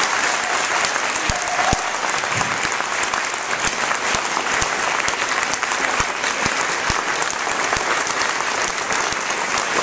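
Audience applauding, a steady round of many hands clapping.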